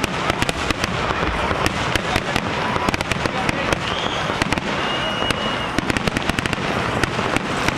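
Fireworks finale: aerial shells bursting in rapid, continuous succession, many sharp bangs a second with no pause. A brief high whistle sounds around the middle.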